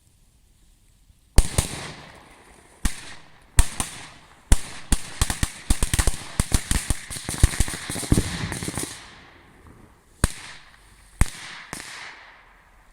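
A bunch of firecrackers going off in a deep pool: sharp bangs, a few single ones at first, then a rapid crackling run for about four seconds, then three last bangs spaced apart, each with a short ringing tail.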